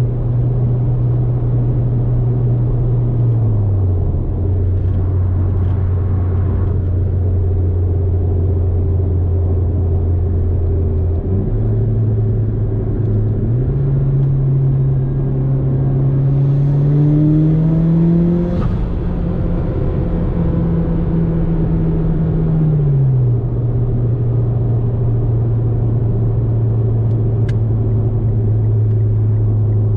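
Mitsubishi Lancer's turbocharged 2.0-litre four-cylinder engine under way, its pitch stepping down twice, then climbing for several seconds under acceleration with a hiss rising alongside it. The pitch drops sharply at a gearshift, falls again a few seconds later, and settles to a steady drone.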